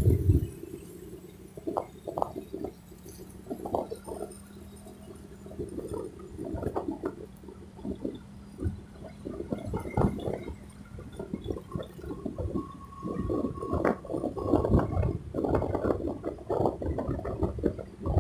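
Road noise heard from inside a moving car: uneven low rumbling and bumps over a faint steady hum.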